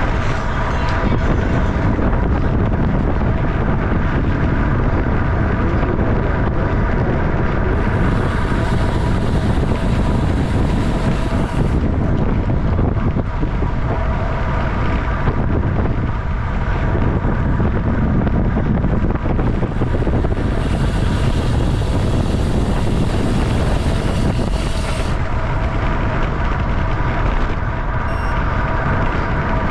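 Wind rushing over the microphone of a camera on a racing bicycle moving at about 25 mph, with steady road rumble and a few faint steady tones. A brighter hiss comes in for a few seconds about eight seconds in and again around twenty seconds in.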